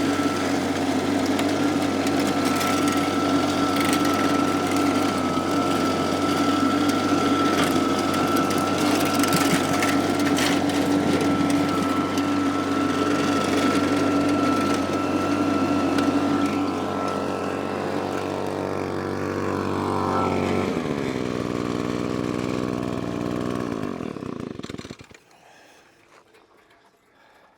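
Small engine-driven vac pac running steadily at a constant pitch, with scattered sharp ticks of gravel going through the hose. Near the end it winds down and shuts off.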